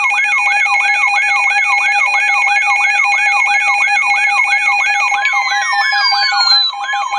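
Emergency alert attention tones before a flash flood warning: a fast siren-like warble repeating about three times a second over a steady tone. About five seconds in, falling glides and a second steady tone join in.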